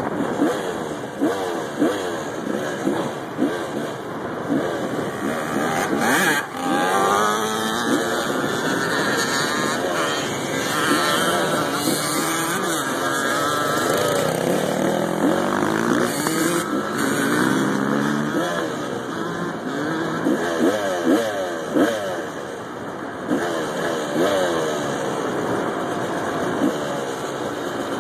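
Dirt bike engines being ridden hard, revving up and dropping back again and again as the throttle is worked.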